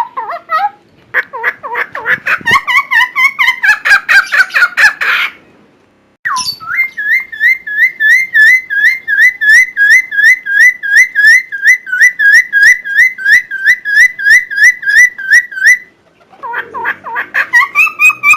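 Cucak timor singing loudly: a burst of rapid, varied chattering notes, then after a short pause a long run of the same whistled note repeated about three times a second, and after another pause near the end, varied song again.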